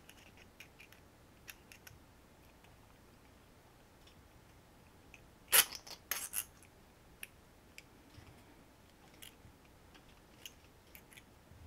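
Wire being bent with needle-nose pliers: scattered light metallic clicks and ticks from the pliers' jaws and the wire, with two louder sharp clicks a little past the middle.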